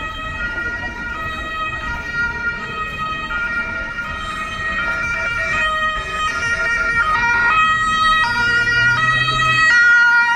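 Emergency vehicle siren in street traffic, stepping back and forth between pitches and growing louder as it approaches.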